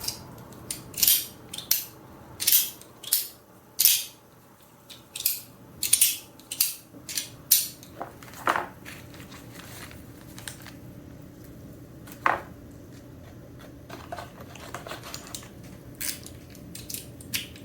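ACEDC Rabbit fidget toy being worked by hand: irregular sharp clicks and snaps, about one or two a second, with two fuller knocks partway through.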